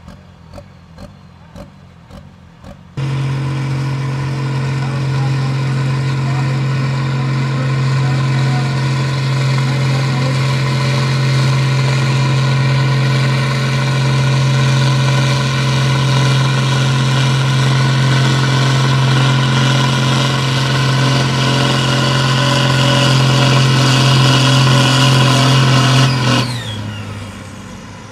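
Case IH tractor's diesel engine running flat out under full load while pulling the brake sled: a loud, steady, heavy note that starts abruptly about three seconds in and falls away near the end. Before it, a few sharp clicks over a low background.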